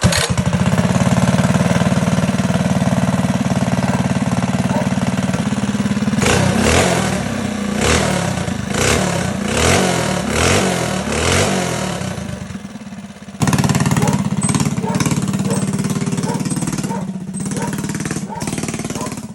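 Performance minibike's small engine running steadily, then revved up and down over and over for about six seconds. It dips briefly and then runs on at a steady speed.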